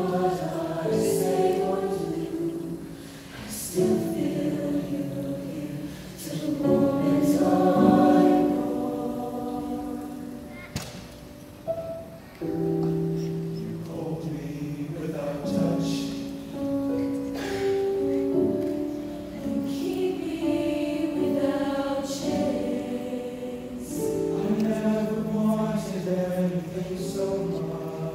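Mixed show choir singing in harmony, in phrases of long held chords that swell loudest about eight seconds in and briefly fall away near twelve seconds.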